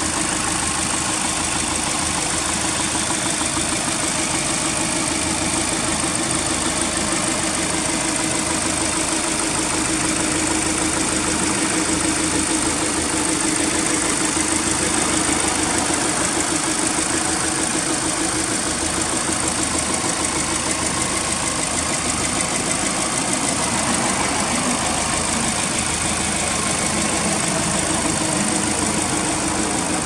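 Subaru Impreza WRX STi Version IV (GC8) turbocharged EJ20 flat-four engine idling steadily, heard from over the open engine bay.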